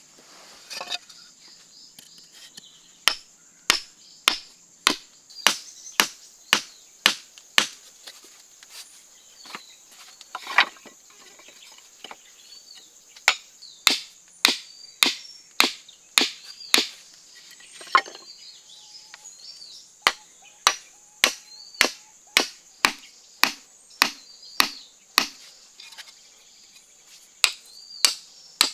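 Steel hammer head striking the tops of wooden stakes to drive them into sandy ground: sharp knocks in runs of slightly under two a second, with a few pauses between runs.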